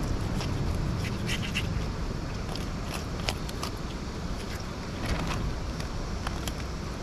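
Knife blade scraping scales off a freshly caught fish against a rock: irregular short scratchy clicks over a steady low rumble.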